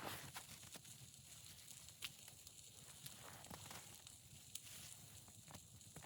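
Near silence with a faint hiss and a few scattered faint clicks.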